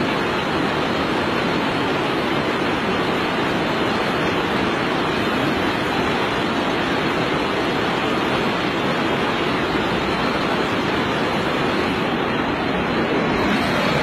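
Steady rushing of fast-flowing river water, an even noise with no breaks, slightly louder near the end.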